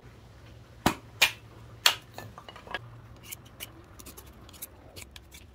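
Three sharp knocks in the first two seconds, then a run of short, quick rasping strokes of a hand file shaping a wooden dowel peg.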